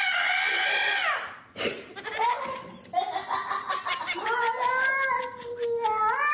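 A cat yowling at length: long, drawn-out calls that rise and fall in pitch, one ending about a second in, another starting midway and a third beginning near the end, with a sharp knock after the first.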